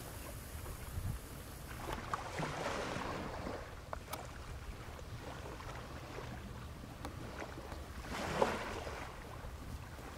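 Wind noise on the microphone over open water, with small waves washing in twice, a couple of seconds in and again near the end.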